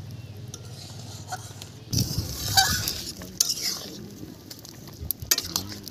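Long metal spoon stirring spinach and red-lentil dal as it simmers in an iron kadai, scraping the pan and knocking against its rim, with several sharp knocks near the end.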